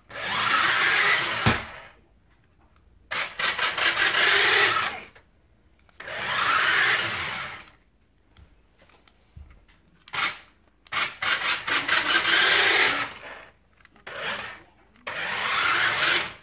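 Cheap toy RC truck's small electric drive motor and gears whirring as it is driven in short bursts of one to two seconds, with quiet pauses between. It is running on higher-voltage nickel-zinc AA cells.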